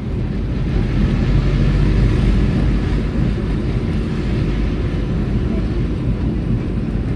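Steady road and engine rumble heard from inside a moving car, swelling slightly in the first couple of seconds and then easing.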